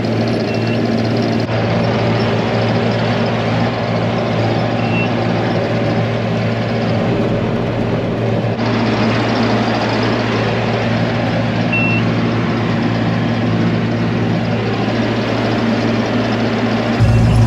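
Tractor engine running steadily under load with a constant low drone, pulling a field roller at speed, with a few short high beeps now and then.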